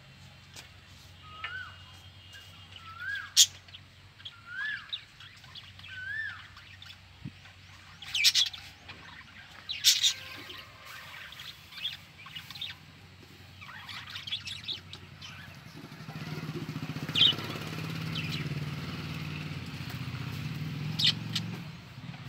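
Budgerigars chirping: scattered short, sharp calls, with a run of four rising whistled notes about a second and a half apart in the first six seconds. About two-thirds of the way through, a low engine hum sets in underneath.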